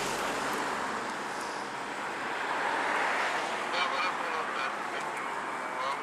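Handheld police radio transceiver hissing with static, with a garbled, nasal-sounding transmission breaking through about four seconds in.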